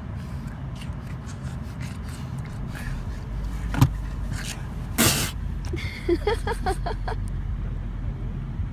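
A man's sneeze about five seconds in: one sharp, noisy burst, followed by a few short high-pitched vocal sounds. A steady low rumble sits under it all.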